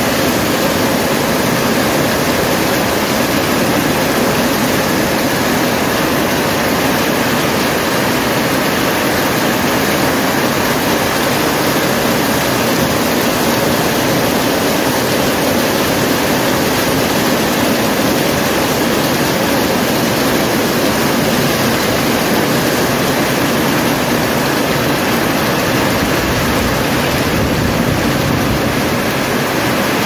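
Heavy rain pouring steadily onto corrugated metal roofs: a dense, even hiss with no thunder.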